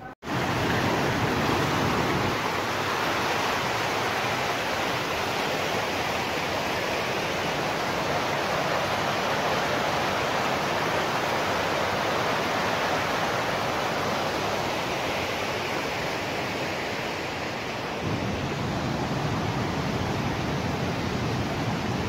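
Waterfall: a steady, even rush of falling water that begins abruptly at the start.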